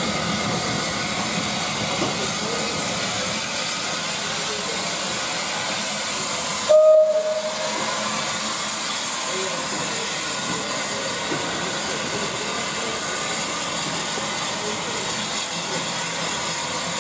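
L&YR Aspinall class 27 (3F) 0-6-0 steam locomotive hissing steam as it moves off, with one short, loud whistle blast about seven seconds in.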